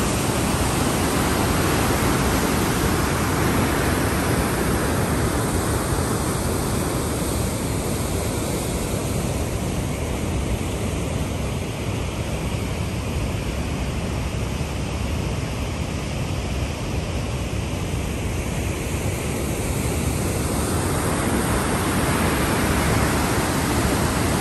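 Water rushing out of a dam's outlet tunnel into a concrete spillway channel: a steady, loud churning rush, a little softer in the middle and stronger again near the end.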